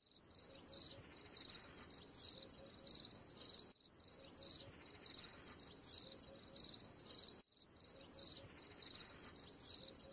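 Crickets sound effect: a steady, pulsing high chirping trill, with a brief break about every four seconds where the loop repeats.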